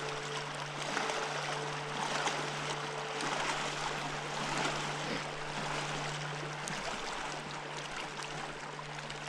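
Steady rush of flowing river water, with a steady low hum underneath.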